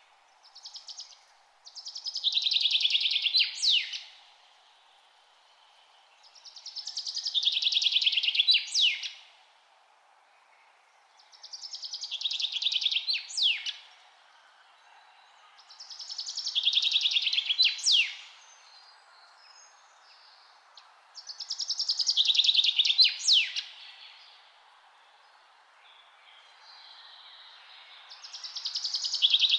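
A songbird singing the same fast trilled song over and over, about every five seconds. Each phrase lasts a couple of seconds and ends in a sharp quick note, over a faint steady background hiss.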